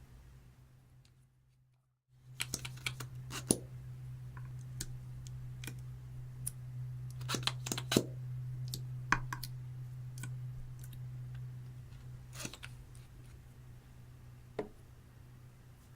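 Irregular sharp clicks and small taps from hands working slime and makeup, over a steady low hum. The sound drops out briefly about two seconds in, then the clicks resume, strongest around the middle.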